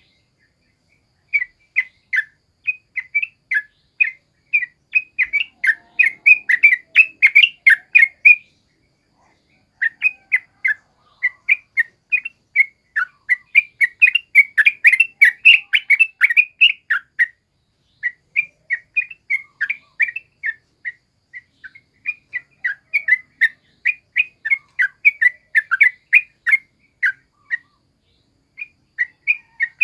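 Caged yellow-vented bulbul (trucukan) singing: rapid runs of short, sharp notes in long phrases, broken by brief pauses about a second in, near ten seconds, around seventeen seconds and near the end.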